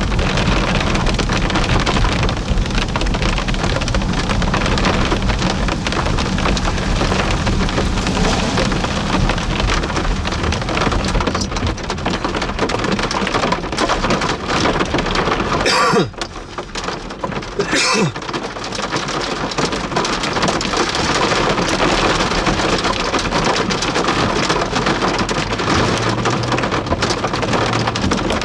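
Heavy rain and hail pelting down in a severe thunderstorm, with strong wind, as a dense, loud rush. About halfway through it eases for a couple of seconds, with a sharp crack at the start and end of the lull.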